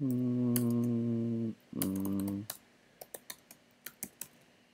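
Typing on a computer keyboard, with scattered keystrokes that come mostly in the second half. Over the first half a man hums two long notes, each held at one pitch, the first lasting about a second and a half.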